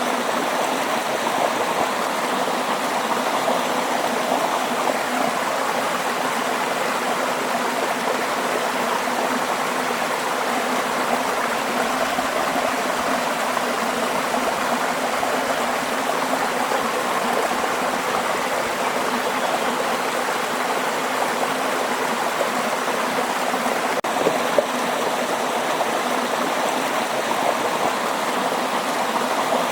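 Waterfall water pouring and splashing in a steady, unbroken rush.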